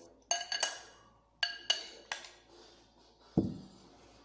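Metal cutlery clinking against a plate while eating: six sharp ringing clinks in two quick groups of three, then a single dull thump about three seconds in.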